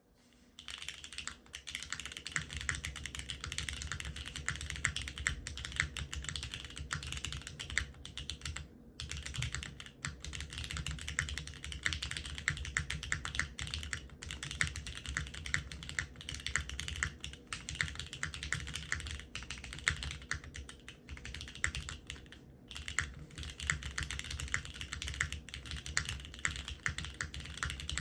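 Continuous fast typing on a Geonworks F1-8X custom mechanical keyboard with lubed vintage Cherry MX Black linear switches, an aluminium plate, GMK keycaps and no dampening foam. It is a dense stream of keystrokes that pauses briefly twice.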